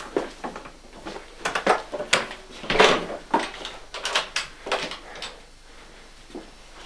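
A quick run of sharp knocks, clicks and rattles, like something being handled or banged about. It is loudest about three seconds in and dies away after about five seconds.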